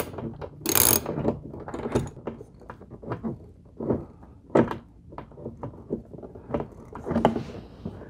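Ratchet and socket extension clicking and scraping irregularly as the two 7 mm door panel screws are given their final tightening, with a louder rasp about a second in.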